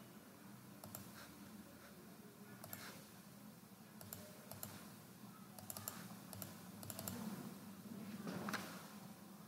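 Faint, scattered clicks of a computer mouse and keyboard, some coming in quick little runs, over a low steady hum.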